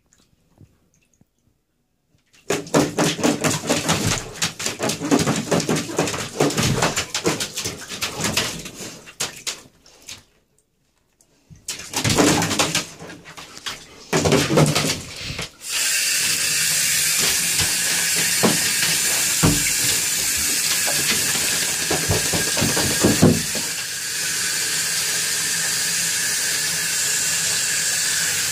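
Golden retriever digging in a wet bathtub: rapid bursts of claws scratching and splashing on the tub floor, with two brief pauses. About halfway through, water starts running with a steady hiss, and the scratching goes on over it for several more seconds.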